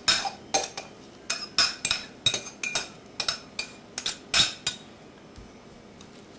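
Metal fork clinking and scraping against a glass dish and glass mixing bowl as thawed spinach is scraped out, a quick uneven run of sharp clinks that stops a little under five seconds in.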